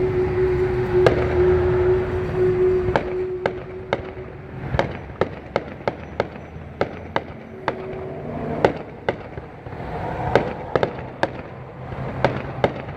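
Fireworks going off in a run of sharp, irregular cracks, about two a second, starting about three seconds in. Before that, a steady droning tone over a low rumble fades out about four seconds in.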